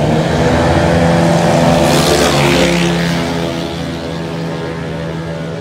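Racing motorcycles accelerating hard past at high revs, loudest about two seconds in, then running on down the track a little quieter.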